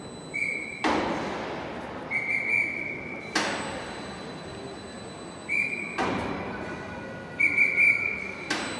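A crew member's signal whistle blown in short blasts four times, giving signals for the gantry-crane lift of the train car. Each blast is followed by a sharp bang that rings on in the large hall.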